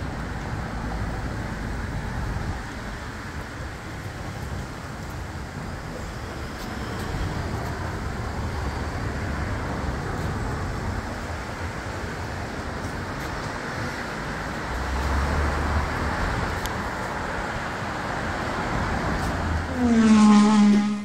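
Street traffic: a steady hum of passing cars, swelling and fading. Near the end a loud tone falls in pitch.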